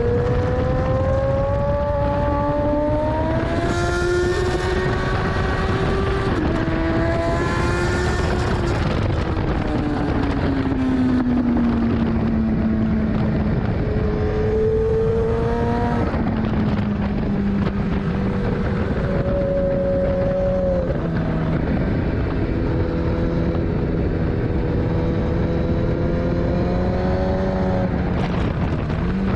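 Kawasaki ZX-10R's inline-four engine at speed on a race track: it revs up through the gears with sudden drops in pitch at each shift, falls away for a long stretch as the bike slows, then pulls again and holds a steadier pitch with another shift near the end. Heavy wind rush over the tail-mounted camera sits under the engine.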